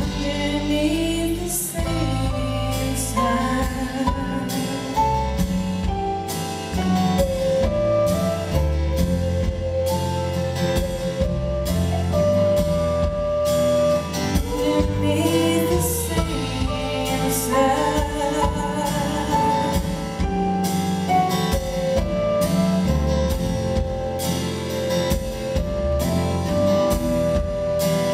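A live band plays a slow song, heard from the audience through the hall's sound system: a woman sings a held, wavering melody over drum kit with regular cymbal strokes, bass and acoustic guitar.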